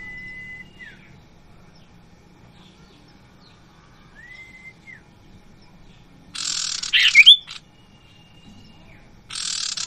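Common iora (sirtu) calling: two long, drawn-out whistles that slur down at the end. Two loud bursts of harsh, rasping chatter follow in the second half, each lasting about a second.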